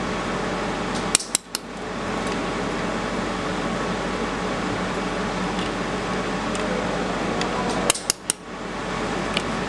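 Steady fan hum of a fiber laser welding machine, broken twice by quick clusters of sharp, metallic-sounding clicks, about a second in and again near the end.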